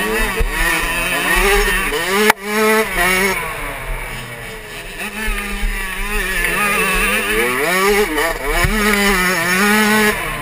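Suzuki RM85 two-stroke motocross engine at race pace, revving up and falling back over and over through throttle and gear changes, with one sudden brief cut a little over two seconds in.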